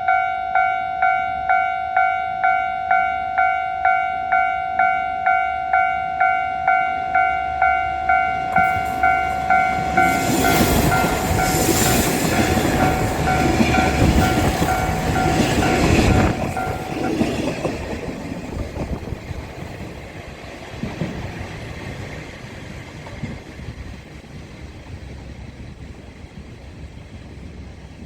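Japanese level-crossing alarm ringing about twice a second while a JR KiHa 47 diesel railcar passes over the crossing, its wheels clacking. The alarm stops about 17 seconds in and the train sound fades away.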